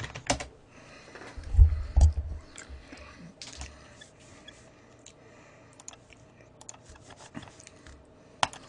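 Computer keyboard typing and clicking in scattered short strokes, with a couple of dull low thumps against the desk about one and a half to two seconds in and a sharp click near the end.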